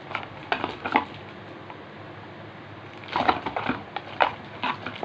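Clear plastic packaging crinkling and crackling as it is handled, in two spells of short crackles, the second one longer.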